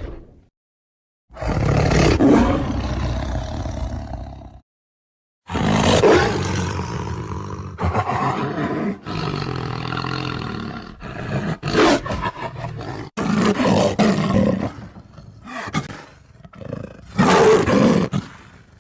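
A tiger roaring and growling in bouts: one roar lasting about three seconds starting about a second in, then after a short pause a long run of rough, uneven roars and growls, and a last loud roar near the end.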